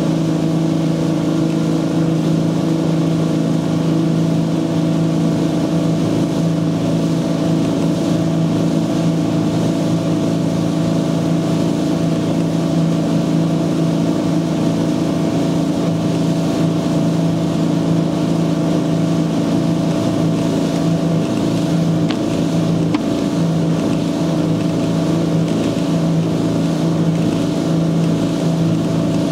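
Antique Ski Nautique ski boat's inboard engine running at a steady cruising speed, its pitch held even throughout, over the rush of wind and water past the hull.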